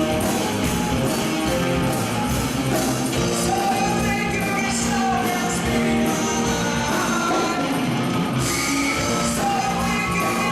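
Live band music with a steady drum beat, and a singing voice coming in over it a few seconds in.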